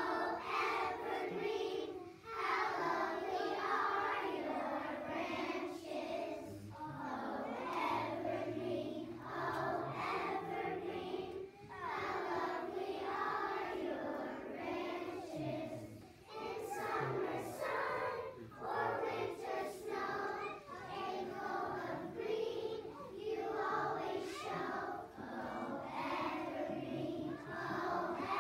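Choir of young schoolchildren singing a song together, phrase after phrase with brief pauses between lines.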